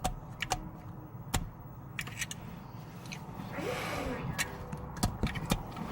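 Small plastic clicks and taps from handling a bottle of bubble solution and its wand, with one short breathy blow through the wand about three and a half seconds in.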